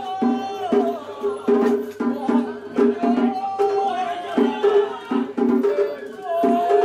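Japanese festival music played live: drums beating a steady rhythm of about three strokes a second with sharp wooden clacks, under a high, wavering, long-held melody line.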